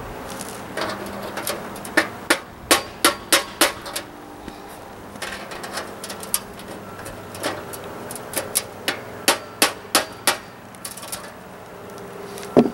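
Hammer striking a center punch against a concrete chimney crown, in several runs of quick sharp taps, to mark the holes for concrete screws. A louder knock comes near the end.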